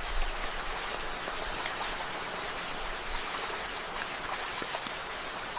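Steady rain: an even hiss with single drops ticking here and there.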